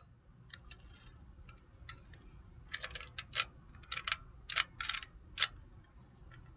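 Hard plastic toy parts being handled, giving scattered light, sharp clicks, with a quick run of clicks from about three seconds in.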